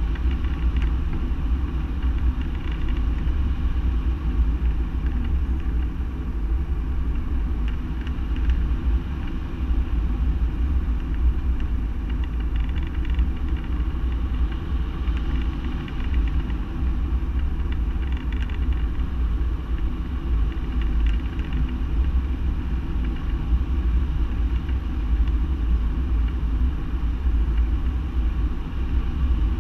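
Airflow buffeting a wing-mounted camera's microphone during hang glider flight: a steady, low rumbling wind noise with no break.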